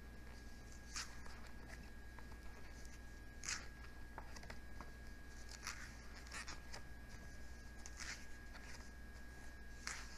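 Pages of a large book being turned by hand: about six short paper swishes and rustles spread over ten seconds.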